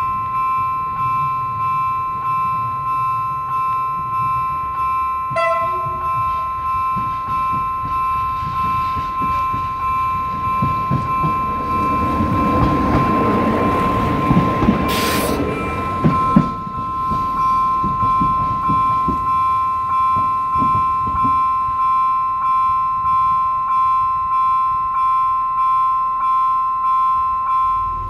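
Level-crossing warning bell ringing in even pulses, about three strokes every two seconds. Partway through, a FEVE 2900-series diesel multiple unit passes over the crossing: a swelling rumble with rapid wheel clatter over the rails, and a short sharp burst of noise as it goes by, then dying away under the bell.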